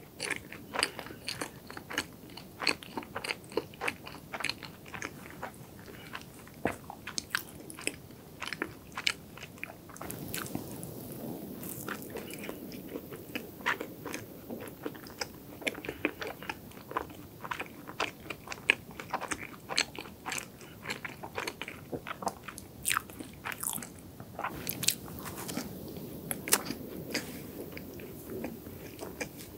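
Close-miked biting and chewing of a cream-filled chocolate croquant choux puff: many small, irregular crunchy crackles from the sugary crust over soft chewing.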